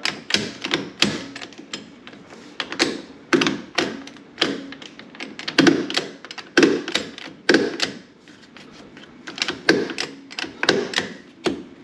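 BoatBuckle G2 retractable transom tie-down being ratcheted, cinching the strap down onto the boat. It makes a series of sharp metallic clicks and knocks, roughly one or two a second, with short pauses.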